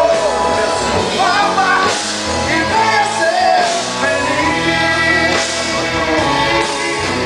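Live pop-rock band playing: electric guitars, bass guitar, drum kit and keyboard, loud and full, with a melodic lead line that bends and glides over the top.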